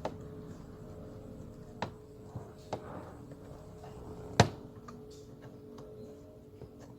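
Scattered clicks and knocks of tools and parts being handled while dismantling a car door, the loudest a sharp knock about four and a half seconds in, over a faint steady hum.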